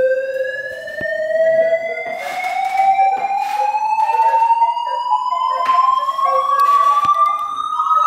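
Synthesized sorting-algorithm sonification: a single electronic tone gliding slowly and steadily upward in pitch, the kind of rising sweep Sound of Sorting plays as it steps through the values in order. Several short bursts of hiss and a few faint clicks sound over it.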